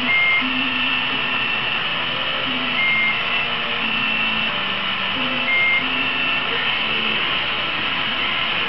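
Hand-held gas torch burning with a steady hiss while glass rods are melted in its flame. A short high beep sounds about every three seconds over the hiss.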